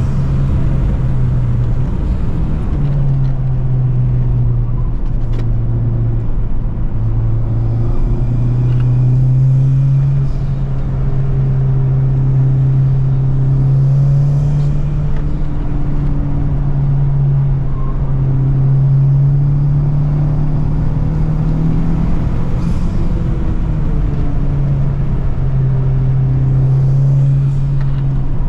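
Honda Civic Type R engine and intake pulling hard on a winding road, the note rising and dropping repeatedly with throttle and gear changes over steady road rumble.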